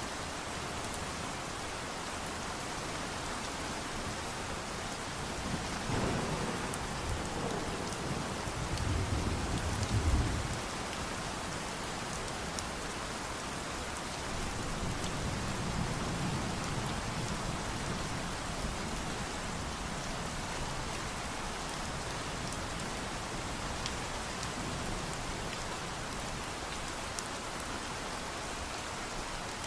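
Steady rain falling. A low rumble of thunder builds from about six seconds in and peaks around ten seconds, then a softer rumble follows a few seconds later.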